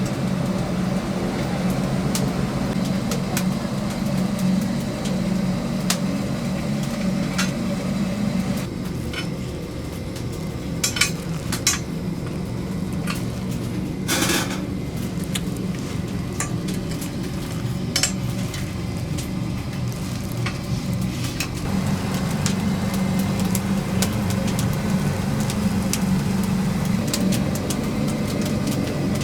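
Kitchen work sounds: a steady low machine hum that drops out for a long stretch in the middle and then comes back, with a few sharp clinks and knocks of utensils and dishes.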